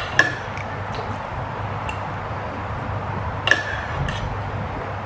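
Children's metal spoons clinking against plastic bowls and plates: two sharp clinks about three seconds apart over a steady low hum.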